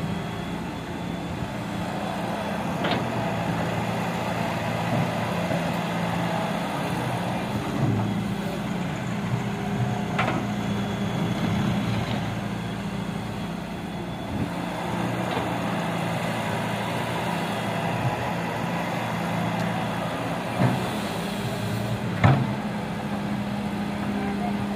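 Wheeled excavator's diesel engine running steadily as it digs and swings with a bucket of soil, with a few sharp knocks along the way, the loudest near the end.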